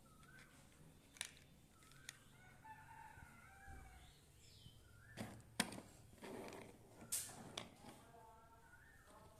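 Plastic toy cars and blocks being handled, giving a few sharp clicks and knocks, the loudest about five and a half seconds in. Faint drawn-out calls sound in the background.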